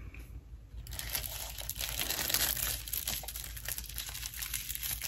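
Crinkling of a Lindt chocolate's wrapper being handled and unwrapped, a dense crackle that starts about a second in.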